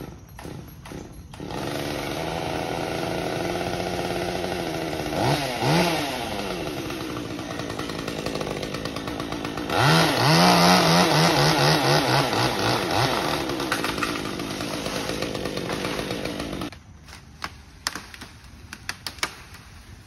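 Chainsaw up in the tree: it starts about a second and a half in, runs steadily, is revved up twice to cut (the second time longer), then stops suddenly near the end, followed by a few sharp knocks.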